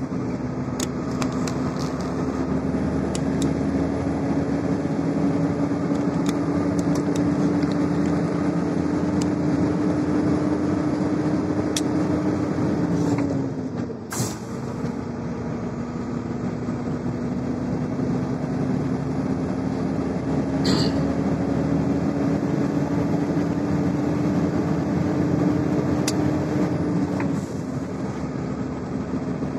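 Iveco truck engine running steadily with road and tyre noise, heard from inside the cab. Its pitch and loudness dip briefly about halfway through, then come back, and the pitch drops again near the end. A few sharp clicks sound over it.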